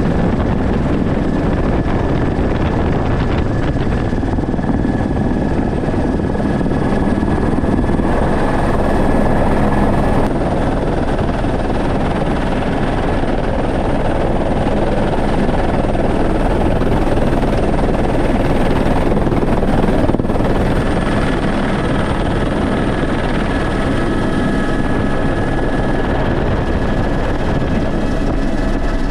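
Helicopter in flight heard from inside its open-sided cabin: a loud, steady rush of rotor, engine and wind noise with thin high whines running through it.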